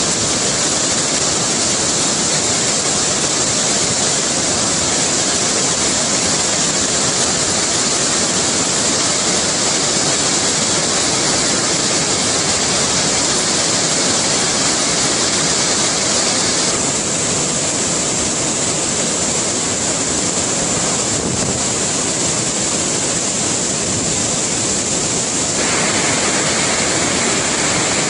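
A waterfall in flood: whitewater rushing over rock ledges in a loud, steady roar. Its tone shifts abruptly twice, about two-thirds of the way in and again near the end.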